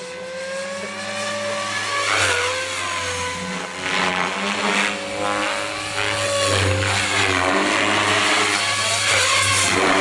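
Goblin 700 radio-controlled helicopter with a three-blade main rotor flying close by. Its rotor and drive whine rises and falls in pitch as it manoeuvres and passes, and grows louder from about six seconds in.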